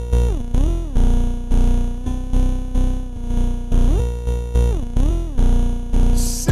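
Background electronic music: a synthesizer with pitch-gliding notes over a pulsing bass beat.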